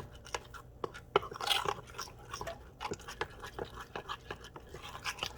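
Spoon stirring a thick flour-and-water batter in a bowl, with irregular sharp clicks and taps of the spoon against the bowl, several a second.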